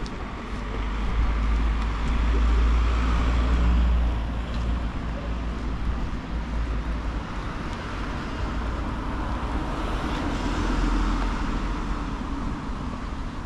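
Street traffic: cars passing one after another, the noise swelling and fading as they go by, loudest about a second in and again about ten seconds in.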